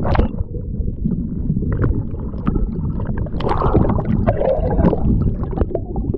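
Lake water splashing and sloshing against an action camera held at the surface, which dips in and out of the water. The sound is a continuous muffled rumble and gurgle with many sharp splashes.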